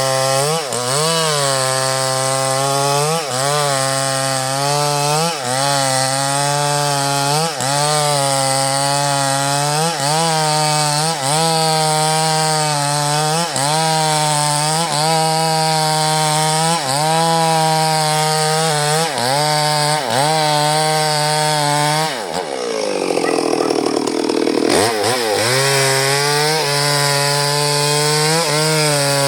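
Two-stroke chainsaw cutting through durian wood at high revs, its pitch sagging briefly every second or two as the chain bites into the wood. About three-quarters of the way through, the engine drops toward idle and revs back up.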